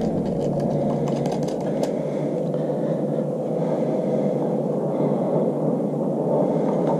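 Steady rushing background noise, with a few faint clicks and taps in the first two seconds as a ground wire is handled and fastened on a metal bath fan housing.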